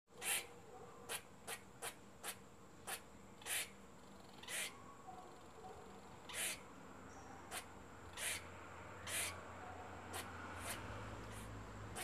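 Eurasian red squirrel calling: a series of short, harsh, noisy chucks and huffs, about fifteen of them, spaced irregularly from half a second to two seconds apart.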